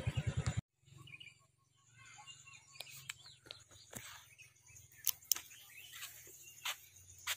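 An engine's low, even thudding for the first half second, cut off abruptly, then faint outdoor ambience with a low hum, scattered sharp clicks and a few short bird-like chirps.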